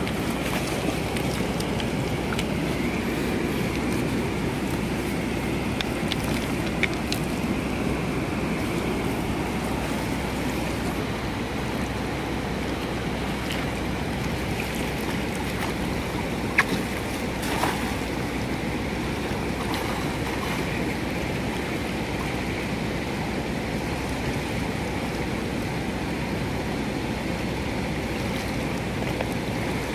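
Fast river water rushing steadily, with a few brief clicks about seven and seventeen seconds in.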